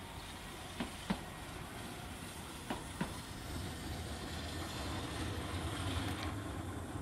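Green Mover LEX low-floor tram rolling past, its wheels clicking twice in quick succession over a rail joint, then again about two seconds later. A low rumble swells in the second half.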